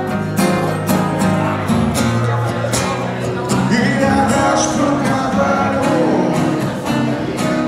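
A man singing while strumming an acoustic guitar, a steady strummed rhythm under the vocal melody.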